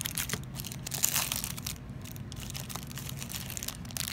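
Clear plastic wrapping crinkling as it is pulled off and handled around a freshly opened stack of trading cards, in irregular crackles that are busiest in the first second and a half and lighter afterwards.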